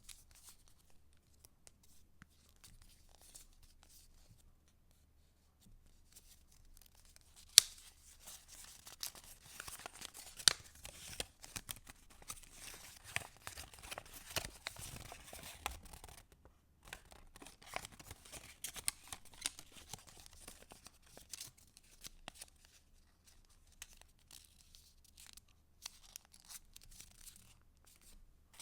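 Paper rustling and crinkling as the pages and tucked-in paper pieces of a handmade junk journal are handled and turned, with scattered sharp clicks and snaps. Light at first, then a sharp snap about seven seconds in, followed by busier rustling up to about halfway, then lighter, intermittent handling.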